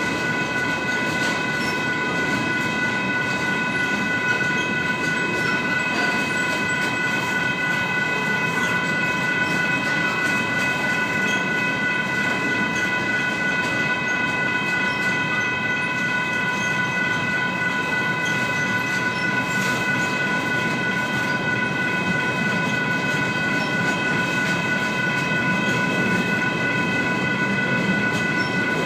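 Freight train rolling past at steady speed: a continuous rumble of wheels on rails with a constant high-pitched whine held throughout, and faint clicks of wheels over the rail joints.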